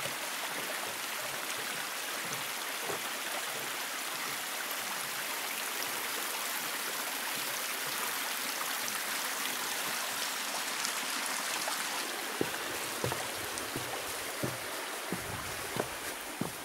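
Stream water rushing steadily below. From about three-quarters of the way in, footsteps close by on the path.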